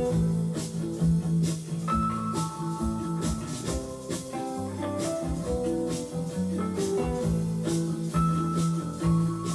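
Background music: plucked guitar over held notes and a steady beat.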